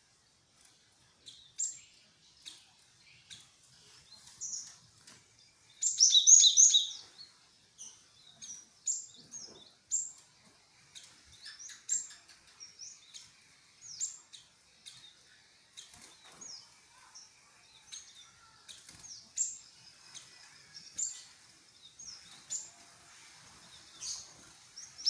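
Cinereous tit (gelatik wingko) calling: short, high notes sliding downward every second or two, with a louder quick run of several notes about six seconds in.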